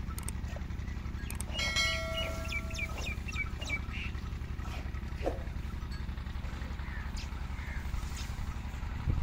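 An engine idling with a low, even throb throughout. About a second and a half in, a bird calls: a held note, then a run of short high chirps.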